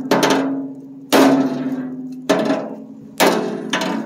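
Hammer blows at a steady pace, about five in all, roughly one a second, some doubled; each blow leaves a low ringing tone that fades before the next.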